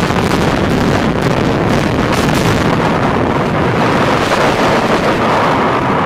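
Power plant building collapsing after its demolition charges fire: a loud, continuous rumble of falling structure and blast noise, with crackling throughout.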